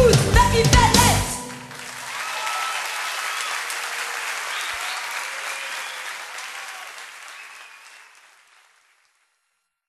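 The song's last bars end sharply about a second in, followed by a crowd applauding and cheering, which fades out over several seconds.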